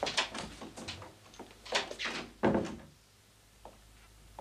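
A door being handled, with clicks and rattles, then shut with a heavy thud about two and a half seconds in.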